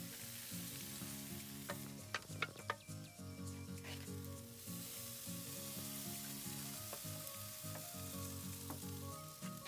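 Raw seasoned grouper collars sizzling on a hot charcoal grill grate, with a few sharp crackles about two seconds in. Background music with a steady beat plays underneath.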